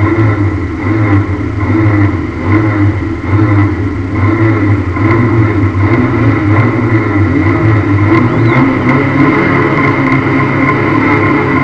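Lada demolition-derby car's engine running steadily while the car stands still, heard from inside the stripped cabin.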